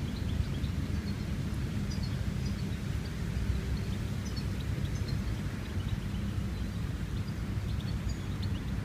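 Wind buffeting the microphone: a steady low rumble, with faint short high chirps scattered over it.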